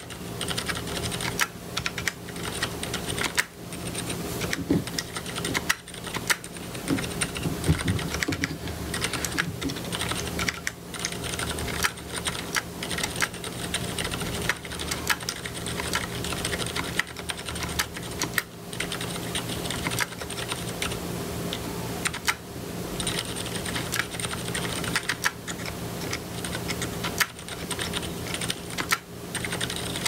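Continuous typing on a mechanical keyboard with lubed Cherry Silent Black linear switches, a plastic plate and DSA keycaps: quick, irregular, muted key strokes. The switches' scratchy sound is strongly amplified by the sound editing; the switches themselves are almost inaudible.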